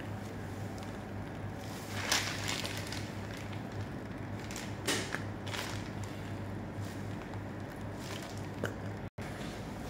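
Whipped cream being squeezed out of a piping bag into plastic cups, giving a few short soft squishing bursts over a steady low hum.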